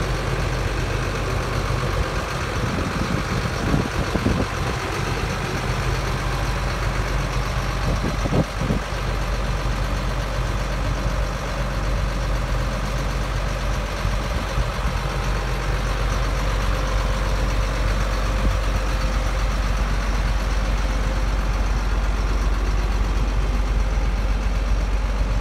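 1997 Chevy C6500 tow truck's engine idling steadily, with a few brief thumps about three to four seconds in and again around eight seconds.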